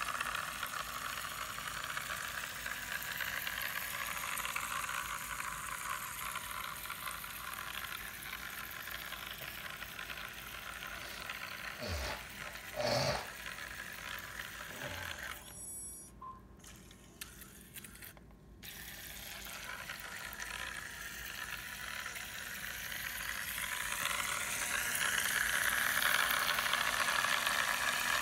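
Battery-powered toy micro boat's tiny motor and propeller whirring as it churns through water in a plastic tub. A couple of knocks sound about halfway through, the sound dips for a few seconds, then builds again.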